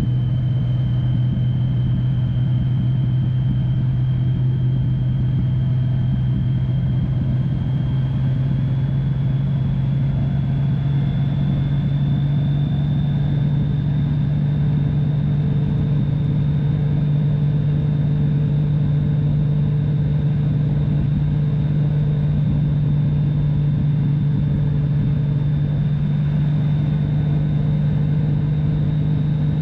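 Touring motorcycle's engine running steadily at road speed with a constant drone and road and wind noise underneath. The drone rises slightly in pitch about a third of the way through and then holds.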